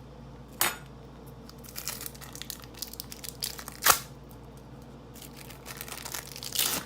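Crinkling of the plastic wrapper from an American cheese slice being handled, with two sharp clicks, about half a second and four seconds in.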